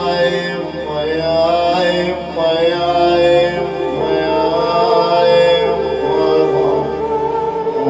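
A male voice chanting a slow, melismatic Shia lament (na'i), its long notes bending and wavering, over a steady low drone.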